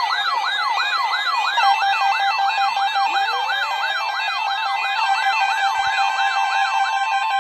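Weather alert radio's siren-like electronic alarm, set off by the weekly warning alarm test. The tone sweeps up and down about three times a second over steady tones, and a lower tone glides upward about three seconds in.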